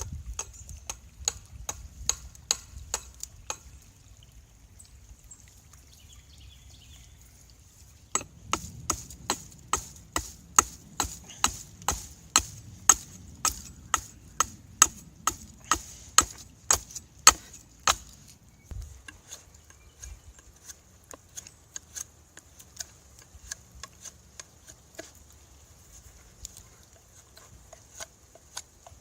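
Hand tool chopping into an oak handle blank, sharp strikes about two a second. There is a short pause, then a louder run of chops lasting about ten seconds before the strikes turn lighter and more scattered.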